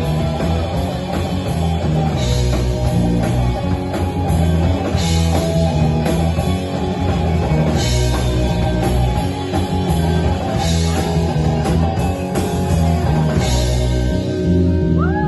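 Live rock band playing: two electric guitars, bass guitar and drum kit, with a cymbal crash about every three seconds.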